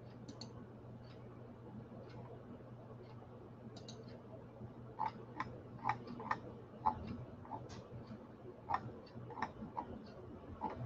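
Faint, irregular light clicks of a computer keyboard being typed on, a few a second, starting about halfway through, over a low steady hum.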